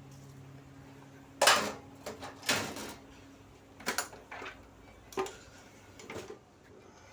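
Metal clanks and knocks from an ice machine's sheet-metal cover panels being handled and set aside: about six separate knocks, the loudest about one and a half and two and a half seconds in. A low steady hum underneath stops about three seconds in.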